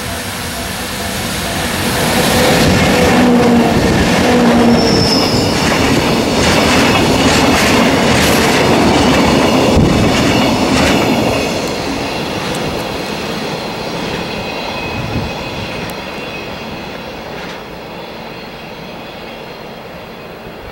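A freight train hauled by two EF64 electric locomotives and made up of empty oil tank wagons passes at speed. There is a steady hum in the first few seconds, then loud rumbling wheel noise and clatter over the rail joints, with a brief high wheel squeal about five seconds in. From about twelve seconds on the sound fades steadily as the train draws away.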